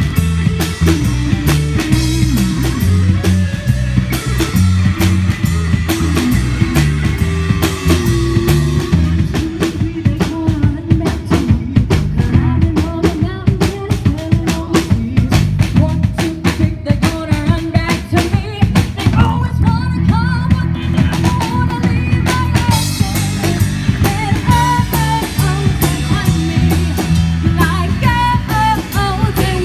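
Live rock band playing loudly: a woman singing lead into a microphone over electric guitar, bass guitar and a drum kit keeping a steady beat. The vocal line is strongest in the second half.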